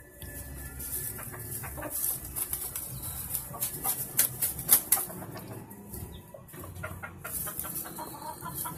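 Gamecock beating its wings in flurries while held in a man's hands, feathers rustling, loudest about halfway through, with chickens clucking now and then.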